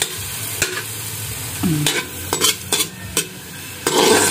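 A metal spoon scraping and tapping against a metal wok, stirring sliced onions that sizzle in a little oil, with a steady hiss under a run of sharp taps and a louder scrape near the end.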